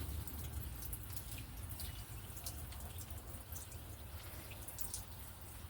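Water dripping and trickling off a window pane freshly rinsed with pure water, scattered light drips over a faint low rumble.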